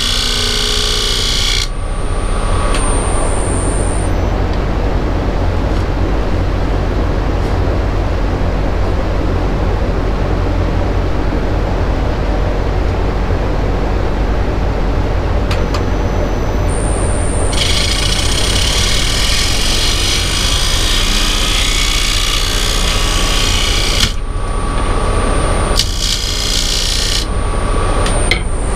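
Wood lathe running with a steady motor hum, while a tool works the spinning wood in loud stretches: at the very start, for about six seconds past the middle, and briefly near the end.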